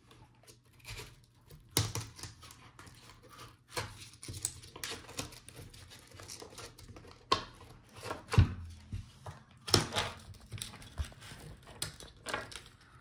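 Irregular clicks, taps and knocks of a laptop's metal palmrest assembly and hinges being handled and worked loose from the display on a desk, with a louder knock about two seconds in and a few more after eight seconds.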